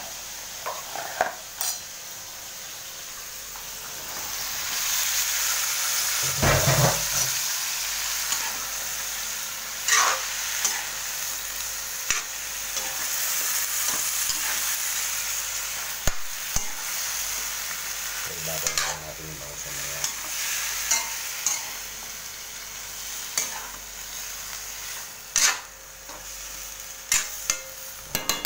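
String beans and eggplant sizzling in a wok while a metal ladle stirs them, with irregular clicks and scrapes of the ladle against the pan.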